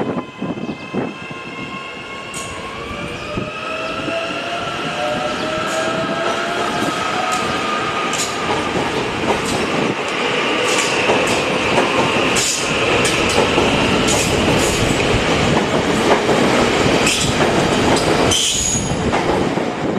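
Electric suburban train passing close by, a whine rising in pitch as it picks up speed over a growing rumble. Its wheels click repeatedly over rail joints.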